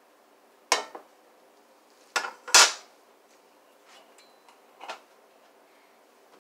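Frying pan and spatula knocking on a glass-top electric stove as they are handled: two sharp knocks about a second in, a louder pair around two and a half seconds in, and a faint knock near the end.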